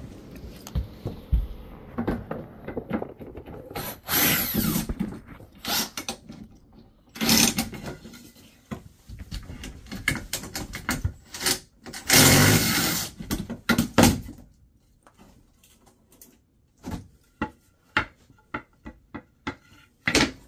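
Power drill running in several short bursts, the longest about a second and a half, between sharp knocks and clicks of tools and parts being handled.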